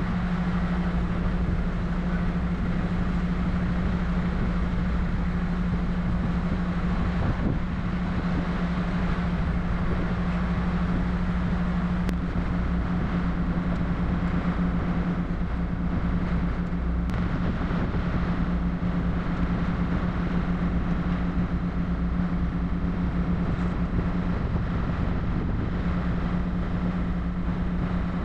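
Heavy tow truck's diesel engine running at a steady speed: a constant low drone with an even rushing noise over it.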